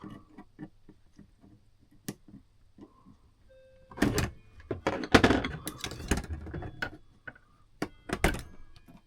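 Clicks, knocks and clatter of hand tools working on the metal parts of a clock movement, with louder bursts of rattling about four seconds in, again for a second or so after five seconds, and near the end.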